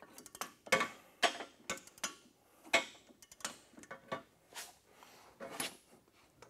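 Ratchet wrench clicking in short, uneven strokes, about nine sharp metallic clicks, as the nut on a golf cart's secondary clutch is tightened.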